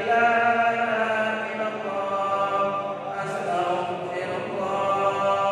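A man's solo voice chanting Arabic religious phrases in long, drawn-out melodic notes, drawing a breath about three seconds in.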